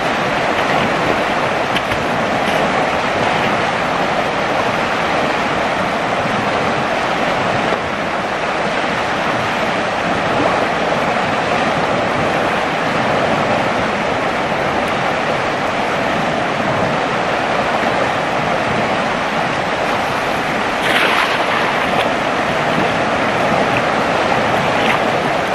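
Steady rushing of a fast-flowing, flood-swollen river, with one brief louder burst of noise about four-fifths of the way through.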